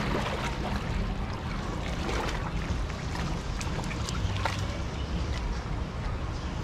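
Water splashing and sloshing as American alligators lunge and jostle in a crowded pool, with a splash at the start and scattered smaller ones after, over a steady low rumble.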